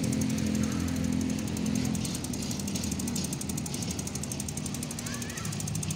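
Bicycle rear-hub freewheel ticking rapidly as the bike rolls, over a low hum that fades after about two seconds.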